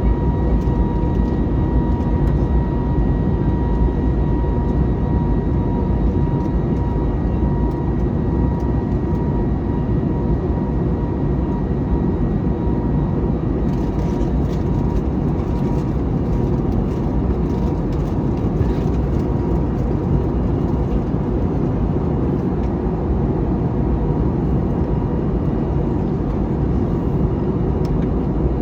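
Steady jet cabin noise inside an Airbus A321neo in flight: the drone of its Pratt & Whitney PW1100G geared turbofans and rushing airflow, heaviest in the low range. A faint high steady hum sits on top and fades out about a third of the way in.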